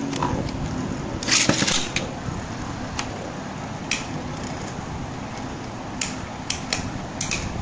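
Two Beyblade spinning tops, one of them Xeno Xcalibur, whirring in a plastic stadium, with sharp clicks as they strike each other and the stadium wall: a cluster of hits about a second and a half in, single knocks around three and four seconds, and several more near the end.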